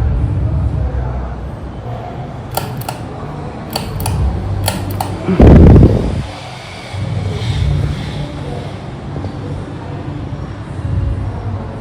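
A Harbor Breeze Classic ceiling fan running with a steady low hum. Its capacitor is bad, so low speed doesn't work. A few seconds in come six sharp clicks in three quick pairs, followed by a brief, loud rumbling thump.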